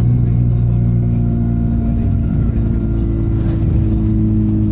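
Enviro 200 bus's diesel engine running under way, a steady drone with whining tones laid over it; the tones rise slightly about three seconds in as the engine picks up.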